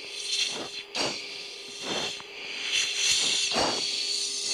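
Breathing picked up by an oxygen-mask microphone over a fighter jet's intercom. There are several hissing breaths, close and loud, over a steady electrical hum.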